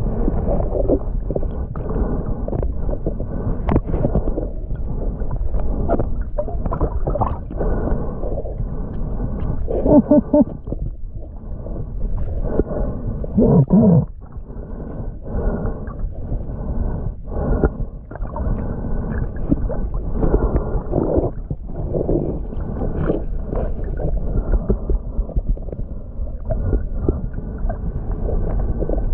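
Muffled underwater noise of water moving around a submerged camera, with irregular knocks as it is handled.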